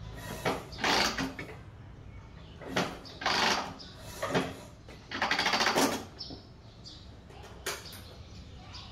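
Cold Harley-Davidson Panhead V-twin being kick-started: a series of about five kicks, each a short burst of cranking clatter and hiss, with one smaller stroke near the end. The engine does not catch and run.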